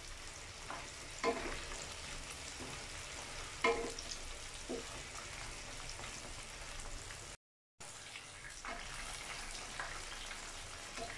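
Spring rolls (chicken lumpiang Shanghai) sizzling steadily in hot oil in a frying pan, with a spatula knocking against the pan a few times, loudest about a second and about three and a half seconds in. The sound cuts out briefly a little past the middle.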